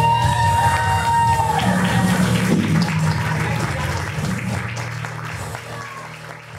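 A rock song with electric guitar ends on a long held note and fades away steadily, with audience applause over it.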